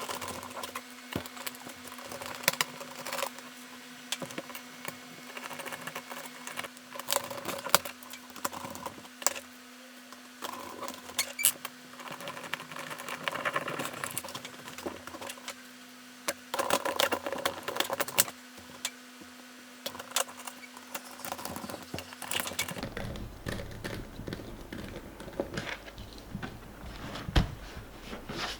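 Irregular plastic clicks and taps from handling the replacement keyboard of an Acer Aspire E1-570 laptop as it is fitted back in, with a faint steady hum underneath that stops about 23 seconds in.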